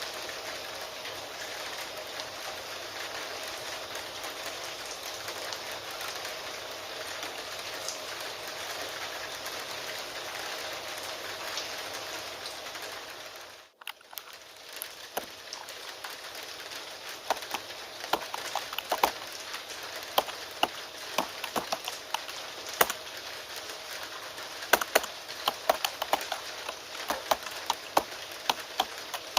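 Steady rain hiss. About halfway through it cuts out for a moment, then comes back with keyboard typing: quick, irregular keystroke clicks, some much louder than others.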